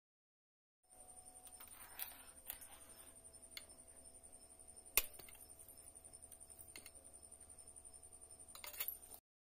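Faint clicks and light metallic taps as a small metal idol and puja items are handled on a copper plate, with one sharper tap about five seconds in. A faint steady high whine sits under the taps.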